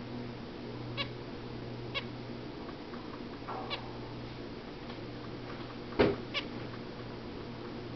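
Pet zebra finches in a cage giving short, nasal single-note calls, about six of them spaced out over several seconds. The loudest comes about six seconds in together with a sharp knock. A steady low hum runs underneath.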